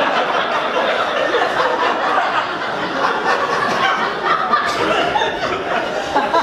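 Audience laughing at a comedian's punchline, a steady wave of laughter that holds at a constant level without letting up.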